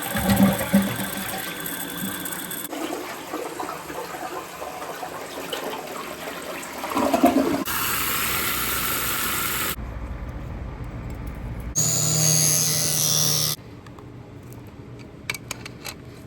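Short plumbing sounds cut one after another, mostly rushing water like a toilet flushing. The sound changes abruptly every couple of seconds, with a brief steady whine past the middle and quieter clicks near the end.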